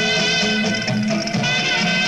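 Lively music: a melody over a bass line that moves from note to note.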